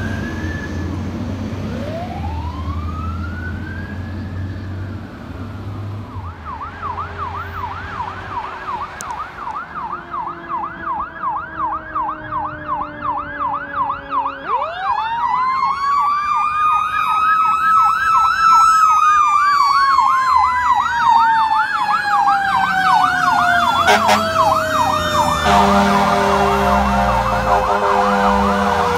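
Fire apparatus sirens: an electronic siren goes from a slow wail into a fast yelp. About halfway through, a mechanical siren winds up, peaks, then slowly coasts down. Horn blasts sound near the end.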